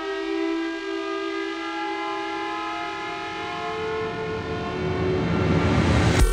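Sustained musical drone of several held tones, with a noisy swell that rises in loudness over the last couple of seconds as it builds toward the film's opening music.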